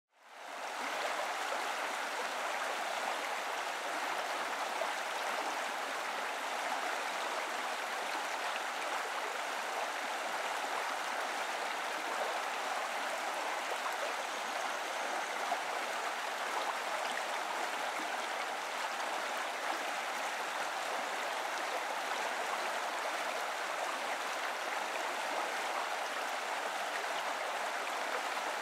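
River water flowing over stones, a steady rushing and babbling that fades in over the first second.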